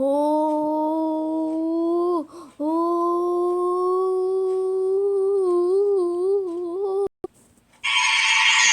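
An artificially drawn-out sneeze: a long, steady, voice-like 'aaah' build-up that breaks off briefly about two seconds in, resumes and wavers, cuts out just after seven seconds, then a loud hissing burst near the end as the sneeze is released.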